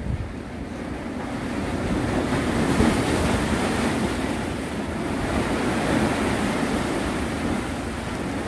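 Sea waves washing and surging, mixed with wind buffeting the microphone; the noise swells and eases every few seconds.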